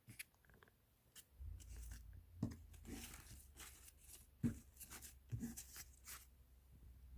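Soft rustling and crinkling of damp paper, with a few light knocks of plastic trays, as a plastic worm tower is covered and closed up.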